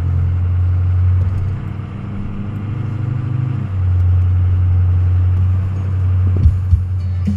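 Ford Super Duty pickup truck driving, heard from inside the cab: a low steady engine drone with road noise, easing off about two seconds in and picking up again near four seconds. Two short knocks near the end.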